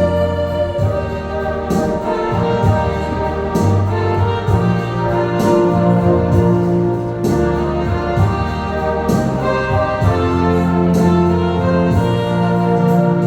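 Instrumental accompaniment playing sustained brass-like chords, with a percussive hit about every two seconds.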